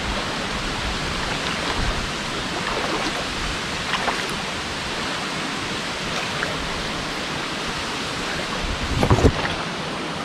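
Steady rush of falling water from a waterfall, with a short thump near the end.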